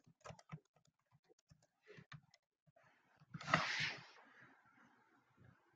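Scattered keystrokes on a computer keyboard typing a search query, a few sharp taps in the first two and a half seconds. About three and a half seconds in comes a louder brief rush of noise that fades within a second.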